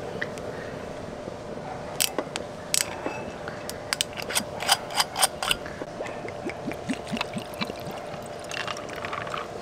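Short sharp clicks and clinks of glasses and utensils being handled as a drink is mixed, clustered in the middle, over a steady faint hum.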